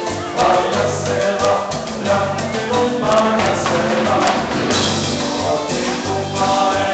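Live band playing Latin dance music, with percussion and a singer, picked up by a phone's microphone in the hall.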